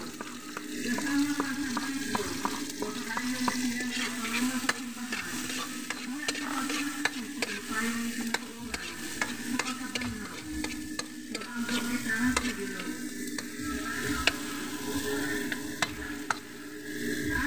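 Chopped onion, garlic and green chilli sizzling in oil in a wok, with a spatula stirring them and scraping and clicking against the pan many times.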